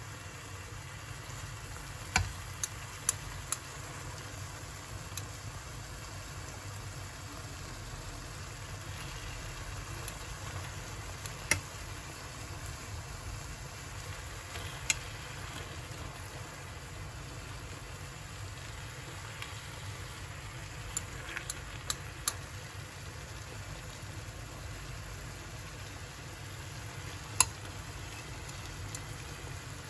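Food frying in hot oil, a steady sizzle, with a number of sharp clicks of a utensil against the pan scattered through it.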